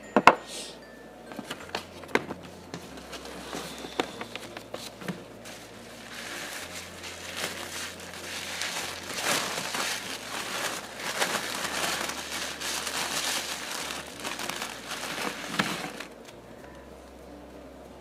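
Two sharp knocks in the first couple of seconds. Then black tissue wrapping is rustled and crinkled as it is handled and pulled out of a cardboard box, stopping a couple of seconds before the end.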